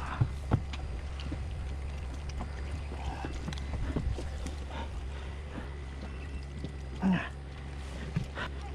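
Handling noises over a steady low rumble: a few short knocks and taps from a plastic cooler box and its lid being handled on a wooden deck, the loudest about seven seconds in.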